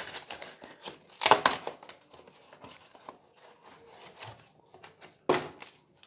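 Corrugated cardboard package being torn open: a loud rip about a second in and another near the end, with light rustling and handling of the cardboard between.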